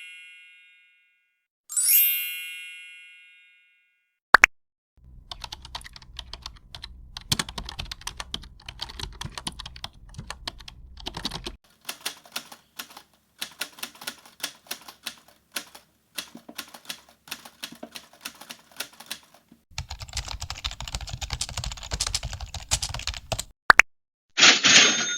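A bright ding that rings and fades over about a second and a half, then a single click, then long rapid, irregular clicking of keyboard typing. Near the end a bright bell-like ringing starts.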